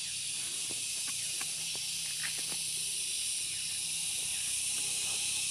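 A steady high hiss, with scattered light snaps and rustles of Malabar spinach vines as they are pulled up by hand.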